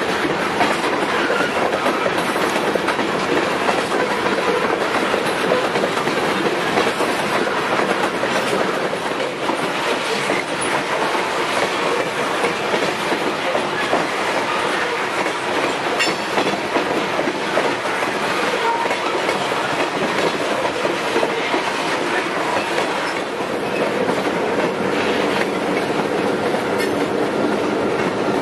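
Covered hopper cars of a freight grain train rolling past close by: a steady rumble of wheels on rail with a clickety-clack over the rail joints.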